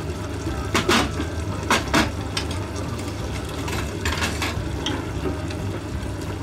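Kitchen utensils clinking and knocking against an enamel cooking pot, with a metal measuring spoon among them. There are a handful of sharp clacks, the loudest about one and two seconds in and a cluster around four seconds, over a steady low hum.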